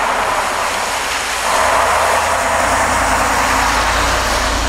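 A box truck passing close on a wet road: a steady hiss of tyres on wet asphalt over a low engine rumble that grows stronger in the second half as the truck draws alongside.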